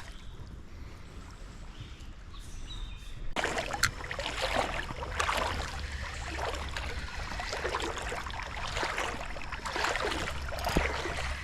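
Creek water sloshing and flowing, growing louder about three seconds in.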